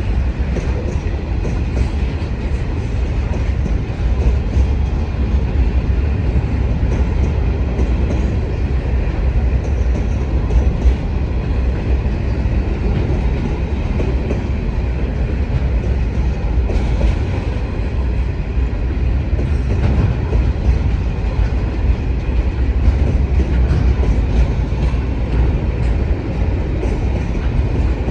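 Freight train rolling steadily past at close range in a continuous heavy rumble, its wheels clicking now and then over the rail joints.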